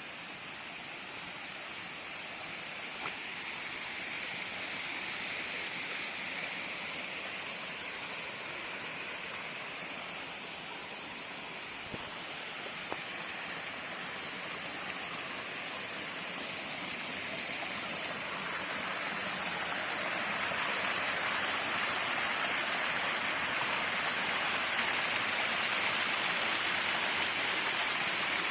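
Waterfall: a steady rush of falling and running water that grows louder over the second half.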